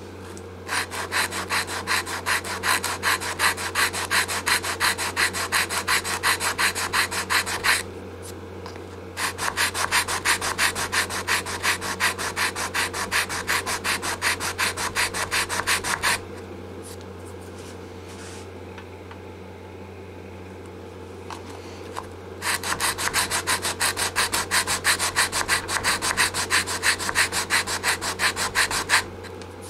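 80-grit sandpaper on a flat Lexan block rasping back and forth across a guitar's wooden neck heel by hand, in three bouts of quick, even strokes, about four a second, with pauses between. The heel is being sanded down for a neck reset.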